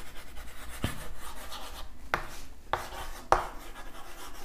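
Chalk scratching and tapping on a green chalkboard as words are written, with three sharper strokes about one, two and three seconds in.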